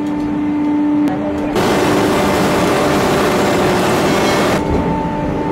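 Hydraulic forging press and manipulator at work: a steady machine hum with two held tones, broken from about one and a half seconds in by a loud hissing rush of noise that lasts about three seconds before the hum returns.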